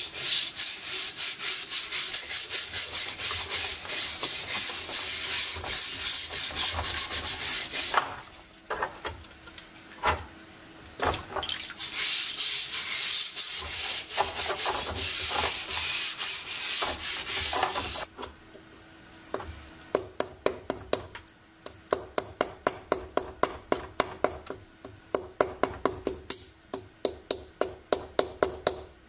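Scouring pad and stiff bristle brush scrubbing the rust on a wet steel M35 helmet in long stretches of steady scrubbing. Near the end this gives way to short strokes of a flat metal scraper on the steel, about two or three a second.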